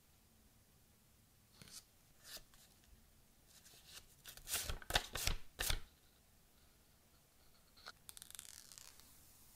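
Gloved hands handling the stiff paper leaflet and Apple sticker card from an iPhone box. There are two faint rustles, then a burst of louder crackling card-handling about halfway through, and a softer paper rustle near the end.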